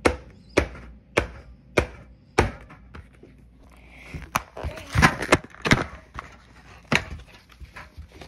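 Drink cans being taken out and set down on a hard surface: a run of sharp, even knocks about every half second, then an irregular clatter of knocks and clinks about halfway through.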